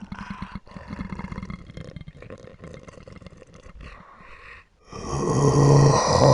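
Zombie growl sound effects: a quieter crackling, rattling rasp for about four and a half seconds, then after a brief gap a loud, low-pitched guttural roar sets in about five seconds in.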